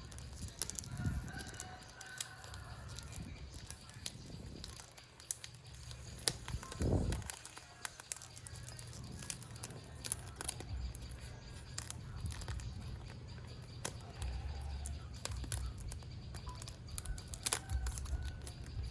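Perfume box packaging being handled and opened: plastic wrap and cardboard crinkling and rustling, with many short scattered clicks, over a steady low hum.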